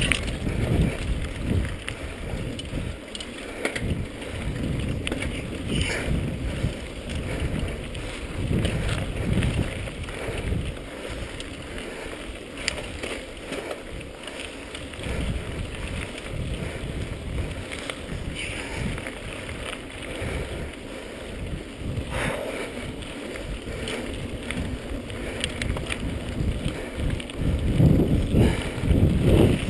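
Wind buffeting the microphone of a mountain biker's camera while rolling down a dirt singletrack, with the mountain bike rattling and knocking over bumps now and then. The rumble grows louder near the end.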